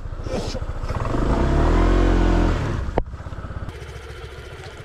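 Honda ADV150 scooter's single-cylinder engine revved up and back down. A sharp knock comes about three seconds in, after which the engine runs on more quietly at a low, steady idle.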